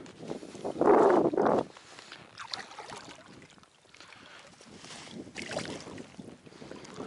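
Water splashing in irregular bursts, loudest about a second in, with a shorter splash near the end.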